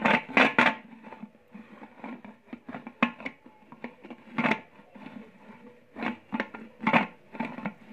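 Scattered short knocks and clicks from a metal pressure cooker being handled, with its lid already closed.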